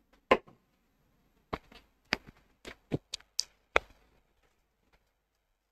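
A string of about eight sharp, irregular clicks and knocks, spaced unevenly over roughly three and a half seconds.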